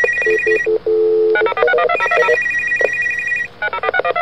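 Battery-powered plastic toy walkie-talkie phone playing its electronic ringtone: a low beep, a quick run of stepping beeps, then a long fast-trilling ring. The sequence plays through twice.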